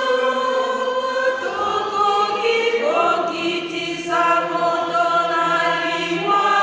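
Church congregation singing a slow hymn together, with long held notes that change pitch every second or two.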